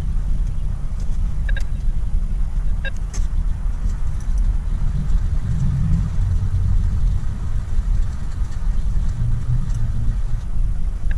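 Steady low rumble of engine and road noise inside a moving car, with a few light ticks about two to three seconds in.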